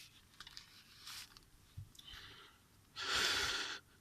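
Faint clicks and light rustling of small phone parts being handled on a bench, then a breathy hiss lasting under a second near the end.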